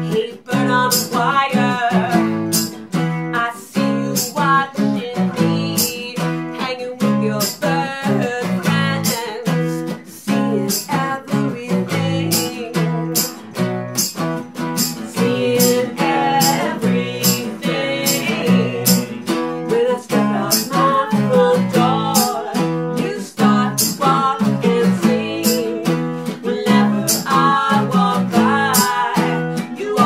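A small acoustic band playing a song: two acoustic guitars strummed, women's voices singing the melody, and a steady percussion beat.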